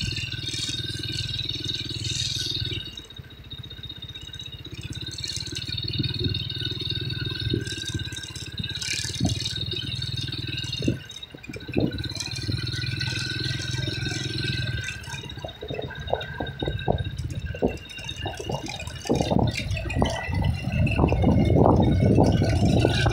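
Vehicle engine running steadily on the road, with irregular rattling and clattering over it that becomes dense and loud over the last few seconds.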